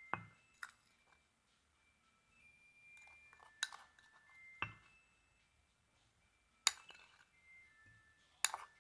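A spoon clinking against a mug while ingredients are spooned in: about six separate light taps, several leaving a brief high ring.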